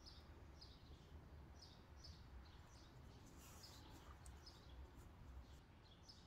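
Near silence: room tone with a faint bird chirping in short repeated notes, about two a second.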